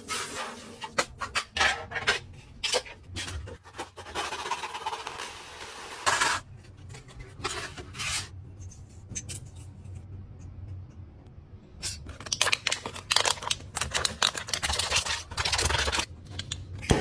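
Hands working an aluminium drink can, making irregular clicks, scratches and scrapes in clusters, with a quieter pause around the middle.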